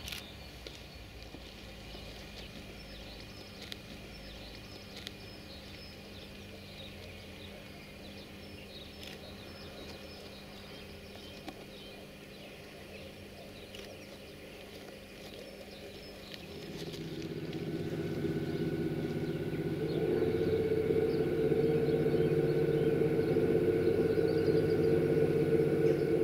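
Birds chirping over the faint hum of a standing 060-EA (LE5100) electric locomotive. About two-thirds of the way in, the locomotive's machinery starts up, and a louder, steady droning hum builds over a few seconds and then holds.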